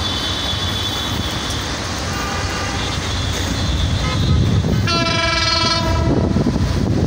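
Diesel locomotive of an approaching passenger train sounding its horn: fainter tones first, then a loud blast about a second long near the end, over steady background noise.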